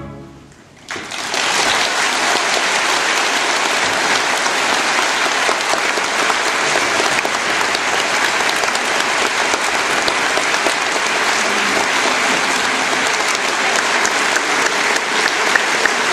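The orchestra's final chord dies away, then about a second in a concert audience breaks into applause, which keeps on steadily.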